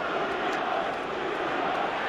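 Football stadium crowd noise: a steady roar of many voices at a moderate level, with no single voice standing out.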